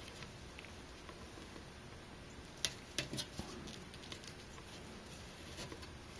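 A few light clicks and taps, mostly bunched together around the middle, from hands handling and turning a CPU heatsink while fitting its rubber strips.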